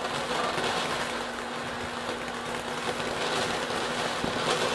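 Ground fountain firework burning, its spray of sparks making a steady hissing rush that grows louder about three seconds in.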